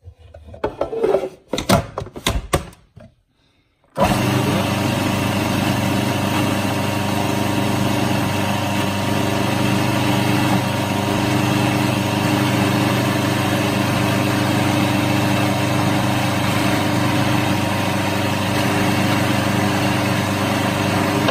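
A few clicks and knocks, then about four seconds in a countertop blender's motor starts suddenly and runs at a steady pitch, chopping basil, mint and parsley leaves into pesto, until it cuts off at the end.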